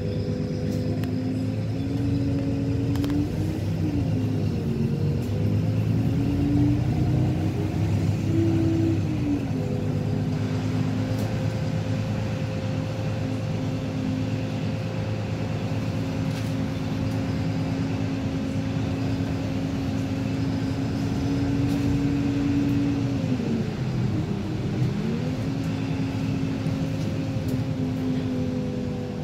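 City bus running, heard from inside the passenger cabin: a steady low hum with a whine from the engine and drivetrain. The whine holds an even pitch while cruising and dips and climbs back twice, about four seconds in and again near the end.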